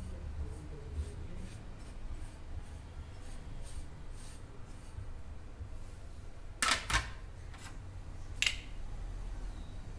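Hands rubbing and squeezing crumbly donut dough in a glass bowl, a soft scratchy rustle. Two sharp knocks come about two thirds of the way through and a third shortly after, as the glass bowl is handled and set down on a hard surface.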